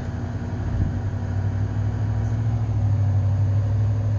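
Steady low mechanical hum, like a room air conditioner or fan, growing a little louder over the first second or two.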